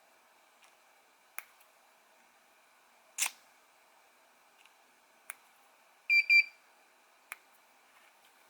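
An electronic device on the soldering bench gives a short double beep about six seconds in. Short sharp clicks come roughly every two seconds.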